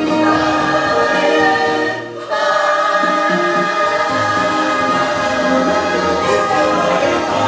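Choir singing held notes with musical accompaniment, with a short break between phrases about two seconds in.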